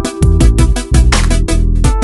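Background music: an upbeat electronic track with a steady, punchy drum beat and heavy bass.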